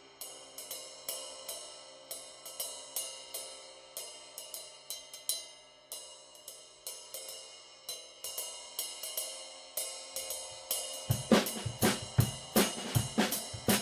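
A 20-inch Zildjian K Custom cymbal struck in a steady pattern, each hit leaving a shimmering ring. About eleven seconds in, the full drum kit joins, with bass drum and snare under the cymbal, and it gets louder.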